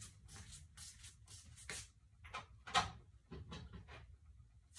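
Irregular small clicks, knocks and rustles of a cologne bottle and other toiletries being handled as the bottle's cap is pulled off. The loudest knock comes a little past halfway.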